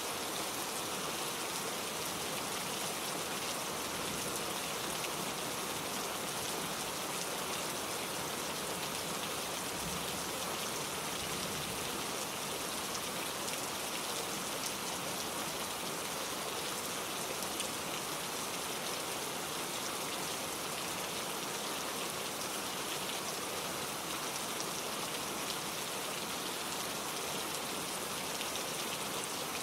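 Steady rain falling, a dense even hiss with the patter of individual drops hitting a surface.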